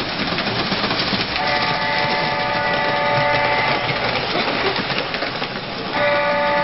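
Lionel diesel model train running on its track with a steady rattle, sounding its horn twice: a chord-like blast of a bit over two seconds starting just over a second in, and a second blast starting near the end.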